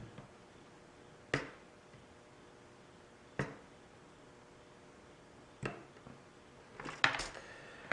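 A few sharp, isolated clicks and taps a couple of seconds apart, with a quick cluster of them near the end: a toaster's casing being handled and turned over while it is taken apart.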